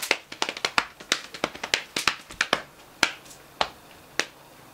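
A run of sharp snapping clicks, fast and uneven at first, then settling about three seconds in into a steady beat of a little under two a second.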